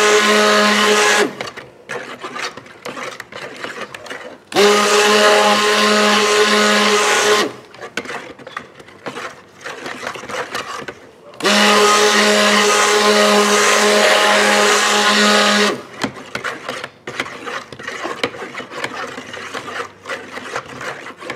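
Electric stick blender mixing oils and lye water in a plastic bucket to saponify a soap batch, run in pulses. It stops about a second in, then makes two more bursts of about three and four seconds of steady motor whine, each winding up as it starts. Between the bursts come clicks and knocks as the blender is stirred through the mix.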